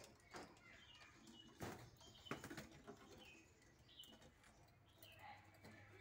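Faint short chirps and squawks from several green parakeets squabbling in a cage, with wingbeats and a few sharp knocks on the wooden perches in the first half.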